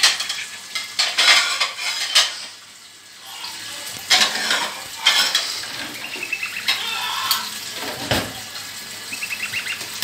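Clicks, knocks and rattling of a wire birdcage and its food and water dishes, with a few short high chirps from a caged white-eared bulbul, two of them quick rapid runs.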